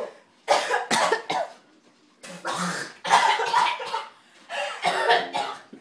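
Coughing fits from ground cinnamon caught in the throat: several harsh coughs come in bursts, with short breaths between them.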